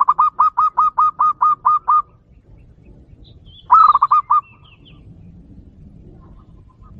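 Zebra dove (perkutut) cooing: a fast run of about ten short staccato notes, then after a pause of under two seconds a shorter burst of four or five notes.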